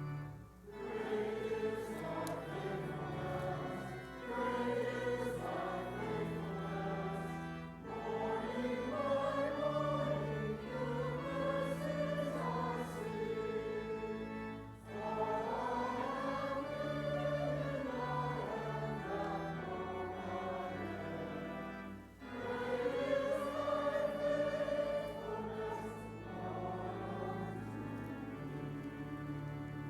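Voices singing a hymn in phrases of a few seconds, with short breaks between them, over held low accompanying notes.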